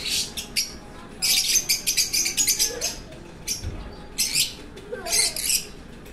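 Lovebirds chirping shrilly in quick runs of rapid high chirps, with short pauses between the runs.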